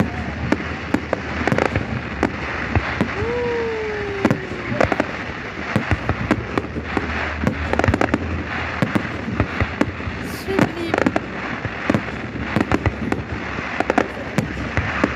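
Fireworks display going off in a rapid, continuous series of bangs and crackles.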